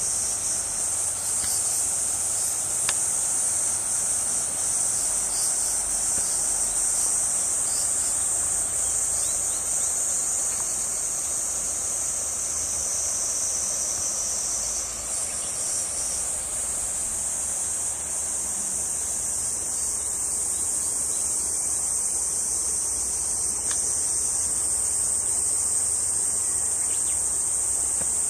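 Steady, high-pitched chorus of insects, shrilling without a break.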